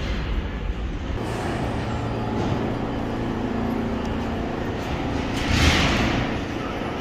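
R42 subway car standing at the platform, its equipment giving a steady rumble and hum, with a short loud burst of hissing air about five and a half seconds in.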